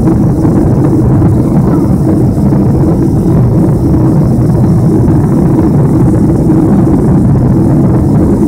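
Boeing 747's four jet engines and rushing airflow heard inside the passenger cabin in flight after takeoff: a loud, steady, deep drone with no change.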